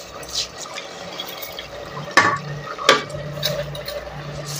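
Raw rice grains poured into an aluminium pressure cooker over wet masala, with two sharp knocks about two and three seconds in.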